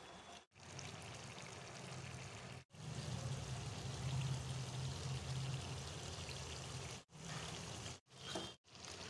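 Chopped tomatoes and onion sizzling in oil in a metal kadai, a steady hiss over a low hum, cut off to silence briefly several times.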